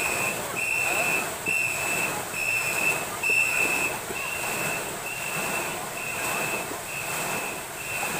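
A crew of boat-race paddlers stroking in unison on a fixed training rig, their paddles churning and splashing the water, with voices shouting. Over it a high whistle sounds in short, evenly spaced blasts, a little more than one a second, setting the stroke rhythm.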